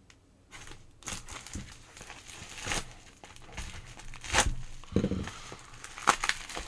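Plastic parcel packaging crinkling and tearing as it is pulled open and unwrapped by hand. The rustling starts about a second in and comes in irregular crackles, with a few louder rips and crunches.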